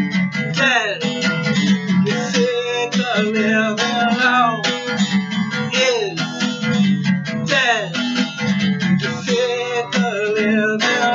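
Acoustic guitar strummed steadily, with short falling sliding notes heard over the chords.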